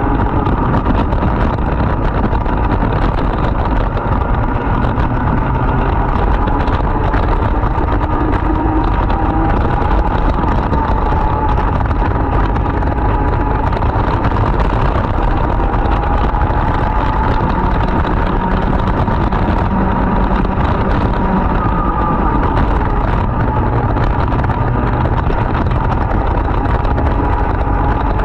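Racing kart's 100cc two-stroke engine running continuously at speed, its pitch wavering slowly up and down as the revs change, over a steady rushing noise.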